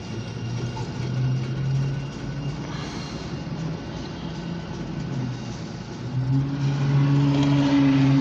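Diesel locomotive engine running with a steady low hum, growing markedly louder about six seconds in as the train draws near or throttles up.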